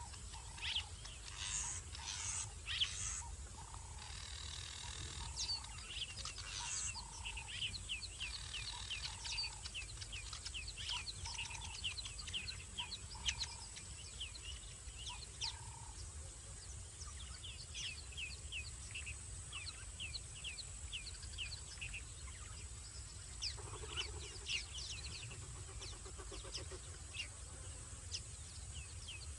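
Night chorus of small animals calling: runs of short, rapid high chirps throughout, with a lower short note repeated about once a second during the first half, over a steady low hum.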